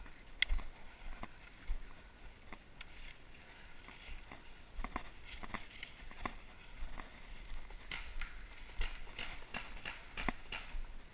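Irregular sharp clicks and knocks that come thicker in the last few seconds, over a faint low rumble.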